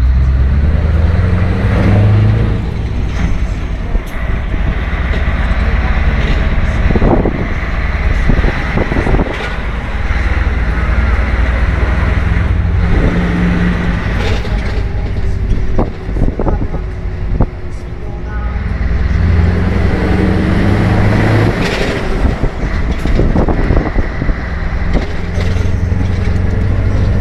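Scania 164L 580's V8 diesel engine running and being revved again and again, its pitch climbing and dropping back several times, with a few short sharp sounds mixed in.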